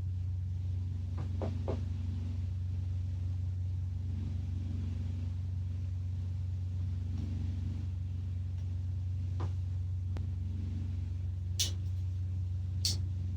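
A few light clicks and taps of small trimmer-engine parts being handled and oiled, over a steady low hum.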